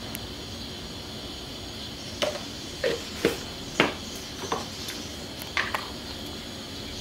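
A handful of light clinks and taps as a spoon scoops seasoning powder from its containers into a metal ladle. The clinks come irregularly through the middle of the stretch over a steady background hiss.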